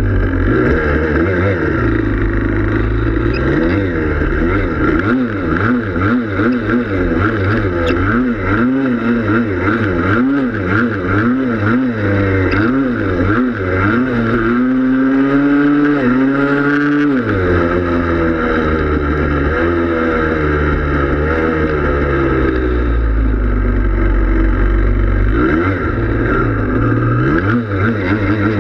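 Yamaha Blaster's two-stroke single-cylinder engine revving up and down over and over as the quad is ridden, held at high revs for a few seconds around the middle before dropping back.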